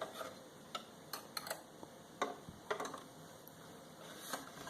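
Faint, irregular small clicks and taps of hands handling a serger while threading its needle.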